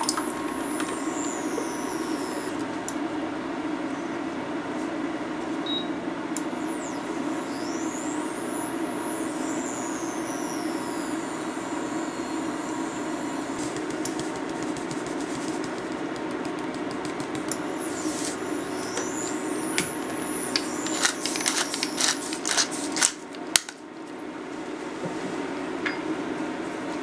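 Cashew cheese mixture cooking in a stainless steel saucepan over a steady background hum. About twenty seconds in comes a run of quick crackling clicks as black pepper is ground over the pot.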